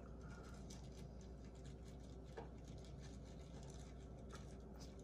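Near silence: room tone with a low steady hum and faint scattered ticks and rustles.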